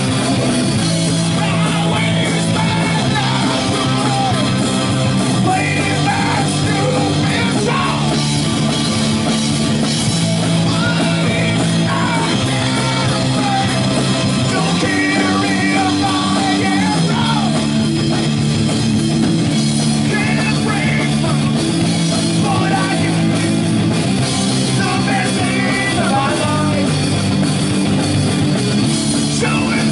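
Punk rock band playing live: distorted electric guitar, electric bass and a drum kit, with shouted singing coming in and out over the chords. The low chord notes change every second or two.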